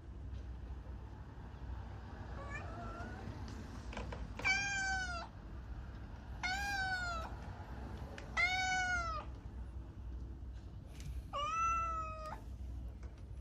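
A cat meowing four times, each call under a second long with a rising then falling pitch, over a steady low hum.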